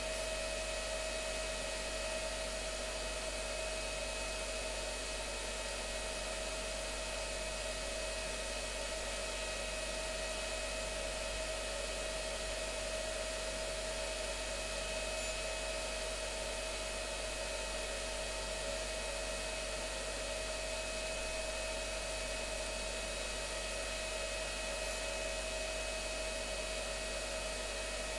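Whirlpool FSCR 80415 washing machine running steadily with a constant whirring whine from its motor and drum, as in a spin.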